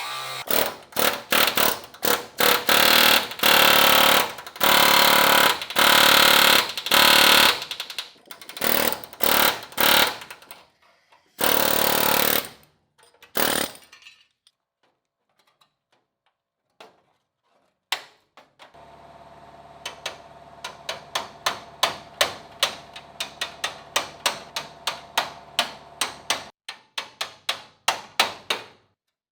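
Metalworking on sheet steel. First come repeated short bursts of a power tool cutting or drilling into the body panel. Later come quick, regular hammer blows on sheet metal, about three a second, over a steady hum.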